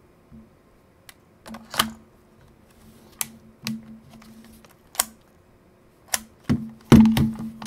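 Clicks and knocks of AA batteries being fitted into a Nikon L35AF2 compact camera's battery compartment, along with the plastic camera body being handled: separate clicks every second or so, with a louder cluster of knocks near the end.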